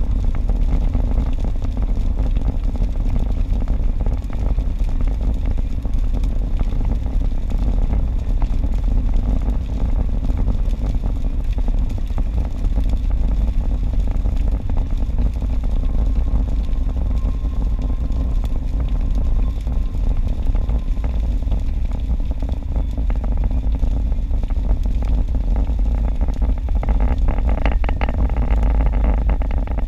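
Steady low rumble of a car driving on a wet highway, heard from inside the cabin, with faint ticking of rain on the windshield. A louder hiss of tyres on wet pavement swells near the end.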